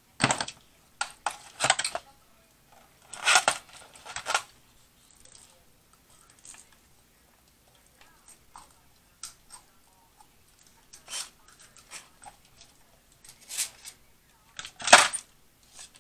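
Scattered short clinks, scrapes and crinkles of a knife and fork working in aluminium foil pans of seafood, and of a foil packet being handled, with the loudest burst about a second before the end.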